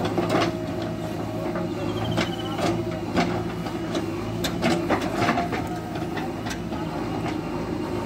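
JCB backhoe loader's diesel engine running steadily while the rear digging arm works, with repeated sharp knocks and clanks from the bucket and arm scattered through the digging.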